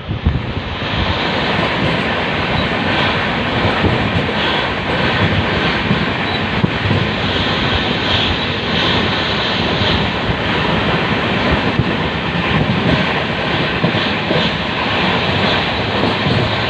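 Passenger train in motion: a steady loud rumble and rushing noise of the running train, wheels on track and wind.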